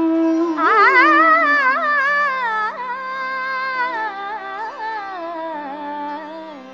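Hindustani classical music in Raga Bhoopali. An ornamented, gliding melodic line sweeps up about a second in, then winds slowly down and fades, over a steady tanpura drone.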